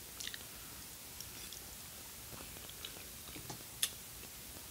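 A person chewing a mouthful of kimchi noodles, with soft, scattered wet mouth clicks and smacks and one sharper click near the end.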